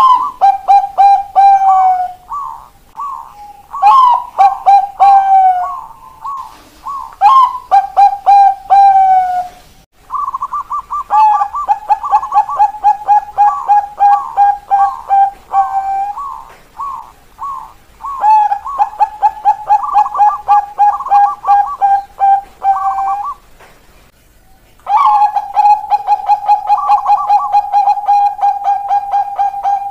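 Bangkok-type zebra doves (perkutut bangkok) cooing in their 'keok kok kok kok' call: long rapid runs of short, rolling notes. The runs break off briefly about ten seconds in and again around 24 seconds.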